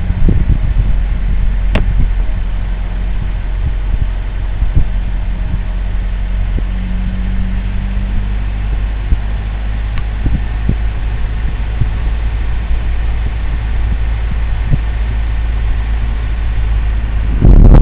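Car engine and road drone heard from inside the cabin: a steady low hum with scattered small knocks and ticks. A sudden louder burst of noise comes right at the very end.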